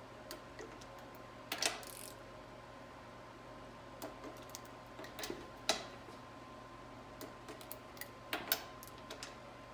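A 1/4-inch torque wrench working the bolts of a 4L60E transmission pump to 16.9 N·m, the first pass of the torque sequence. It gives scattered sharp metallic clicks and lighter ticks, about a dozen of them, the loudest a little after one and a half seconds, near six seconds and near eight and a half seconds.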